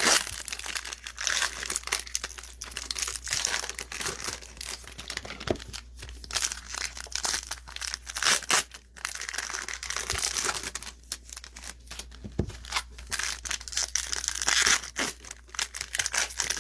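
Trading card pack wrappers being torn open and crinkled by hand, a dense irregular crackling that continues throughout.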